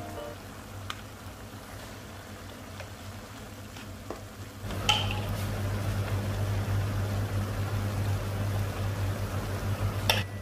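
Minced beef and onions sizzling in a pan, with a low steady hum underneath. About halfway through it gets louder as a spatula starts stirring and scraping through the mince, with a sharp knock against the pan as it starts and another near the end.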